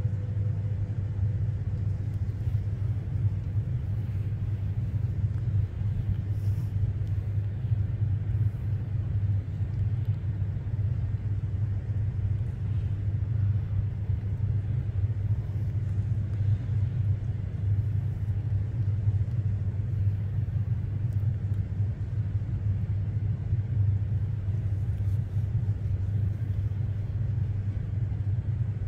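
A steady low rumble of outdoor background noise, with no distinct sounds over it.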